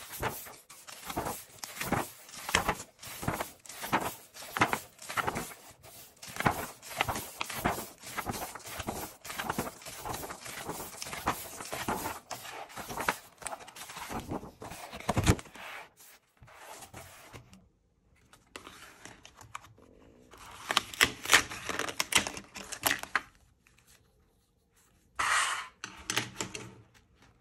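Paper pages of a paperback sticker activity pad being flipped by hand in quick succession, about two turns a second. About halfway through the turning slows and thins out to a few louder rustles of paper being handled.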